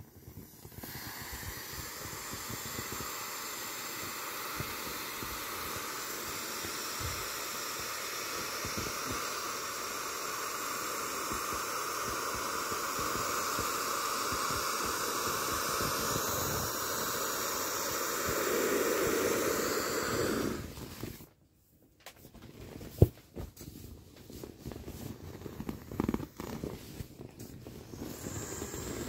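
Air hissing steadily out of a vinyl inflatable's valve held open by the fingers, growing louder before it cuts off suddenly about 21 seconds in. Then the limp vinyl rustles and crinkles under the hand, with a few sharp clicks.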